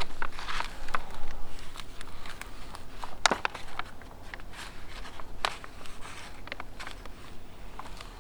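Backing paper being peeled off a large vinyl window decal: rustling and crackling paper, busiest in the first couple of seconds, then scattered sharp crackles.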